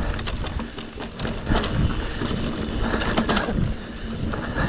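Electric mountain bike ridden down a dirt singletrack: tyres rumbling over the ground, with frequent clicks and rattles from the bike over rocks and wind on the microphone.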